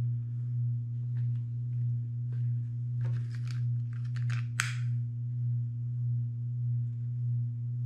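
A steady low hum with a slow waver runs throughout. A little past four and a half seconds in comes one short sharp click with a brief hiss, fitting a utility lighter being sparked to melt frayed nylon paracord ends, with a few soft rustles of handling just before it.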